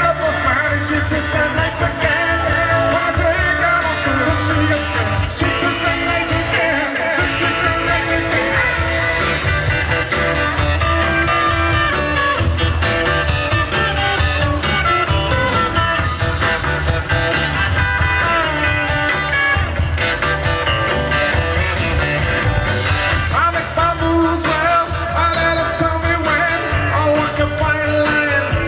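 Amplified live rock band playing: electric guitar over drums and bass, with a man singing.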